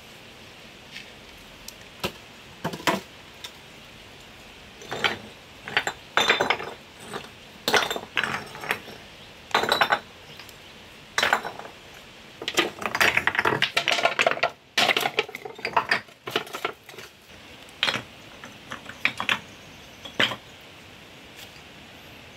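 Irregular hard clacks and knocks of bamboo poles and stones being handled and set down on rock, in short clusters that are busiest in the middle. A steady hiss sits underneath.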